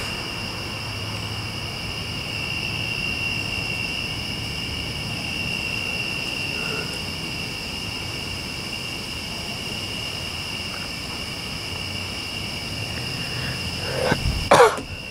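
Steady high-pitched chirring of night insects such as crickets. Near the end a person coughs loudly twice.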